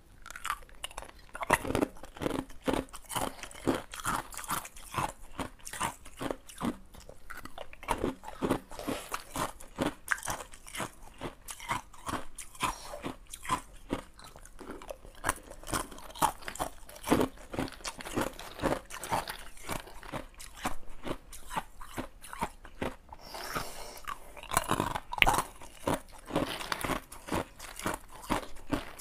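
Clear ice cubes being bitten and chewed close to a clip-on microphone: a rapid, continuous run of sharp cracking crunches, several a second, with a brief let-up about two-thirds of the way through.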